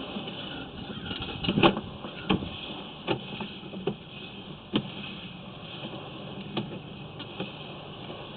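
Sewer inspection camera's push cable being fed down the pipe: irregular sharp clicks and knocks, the loudest about a second and a half in, over a steady hiss.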